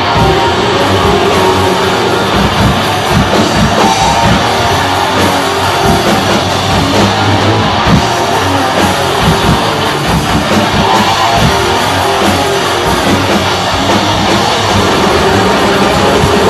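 Death metal band playing live: heavily distorted electric guitars over fast drum kit and bass, loud and dense throughout.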